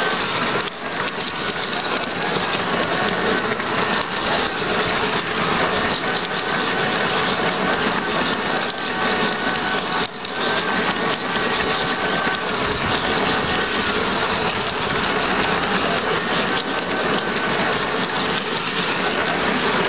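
Model railway locomotive running on a layout: a steady whir of its electric motor and gearing mixed with wheel-on-rail noise.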